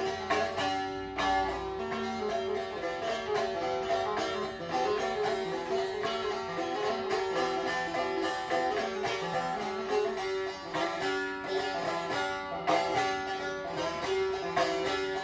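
Bağlama (saz) playing an instrumental interlude of a Turkish folk song: quick plucked runs over a steadily sounding drone note.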